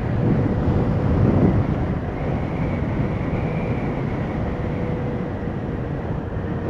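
Motorcycle cruising at a steady speed: the engine's even drone mixed with wind and road noise rushing over the on-bike microphone.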